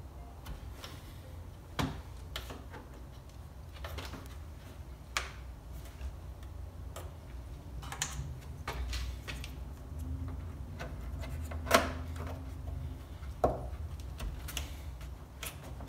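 Irregular clicks and knocks of a car's plastic front grille panel being handled and pressed into place on its clip-in tabs, the two sharpest about twelve and thirteen and a half seconds in, over a low steady hum.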